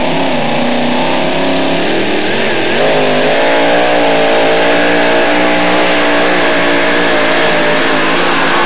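Two-wheel-drive pulling truck's engine running loud, revving up about three seconds in and holding steady under load as it drags the weight-transfer sled.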